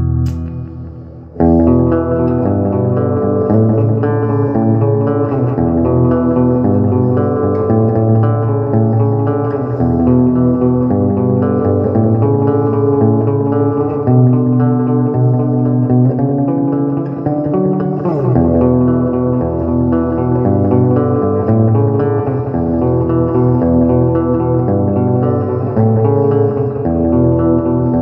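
Electric guitar improvisation, sustained chords over a low bass line, with an effects unit colouring the tone. The sound dips at first and cuts back in sharply about a second and a half in, and a sliding, bent note comes a little past the middle.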